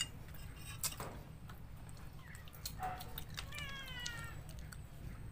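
Metal spoons and forks clinking on ceramic plates during a meal. One short animal call, falling slightly in pitch, comes about three and a half seconds in.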